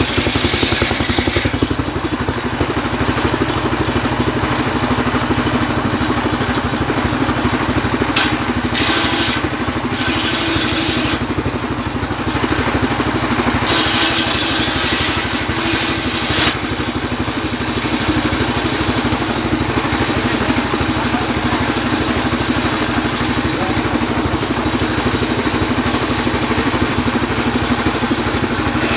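Engine-driven homemade circular sawmill running steadily, its large blade sawing a trembesi log into boards. A high, hissing cutting noise comes and goes over the even drone of the drive as the blade bites into the wood and runs free again, loudest at the start and around the middle.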